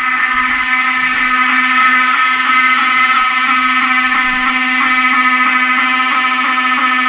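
Fire alarm sounding without pause: a loud, steady buzzing tone.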